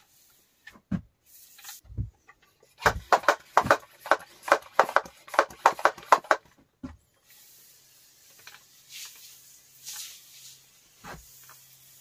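Hand tool working wood: a quick run of about a dozen sharp strokes, three to four a second, with a few single knocks before it and softer rustling after.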